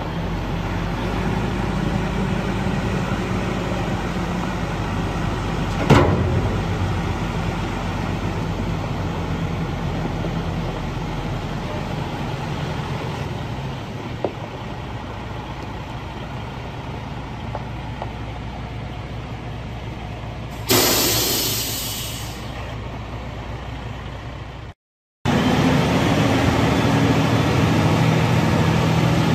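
Detroit DD15 six-cylinder diesel of a Freightliner SD122 dump truck idling steadily, with a single click about six seconds in and a short, sharp hiss of air a little past two-thirds through. After a brief dropout the engine runs louder as the dump body begins to raise.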